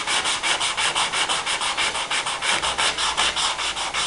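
Sandpaper on a small cut-down foam sanding block being rubbed by hand over a car's body panel in quick, even back-and-forth strokes, a rhythmic hissing scrape.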